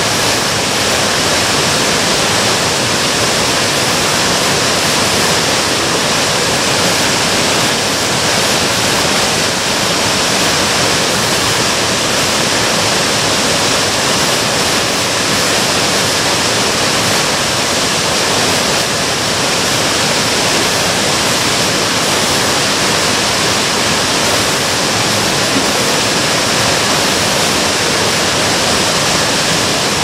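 Minoo Falls, a tall waterfall falling into its plunge pool: a steady, unbroken rush of falling water.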